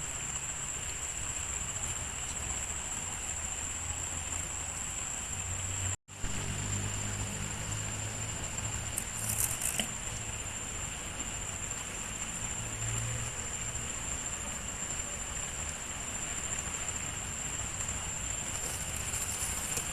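Steady riverside outdoor ambience: an even background hiss with a continuous high-pitched whine and a low rumble underneath. The sound cuts out briefly about six seconds in, and there are a couple of short faint crackles a few seconds later.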